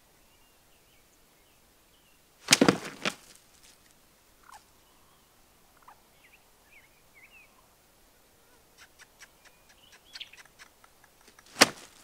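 Loud sharp bursts from a strutting Gould's wild turkey gobbler: a quick cluster about two and a half seconds in and a single one near the end. Faint songbird chirps come in between.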